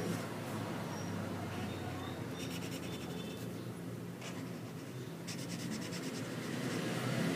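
Felt-tip permanent marker squeaking and scratching across paper in quick short strokes, in two spells a little after two seconds and again past five seconds, over a steady low hum.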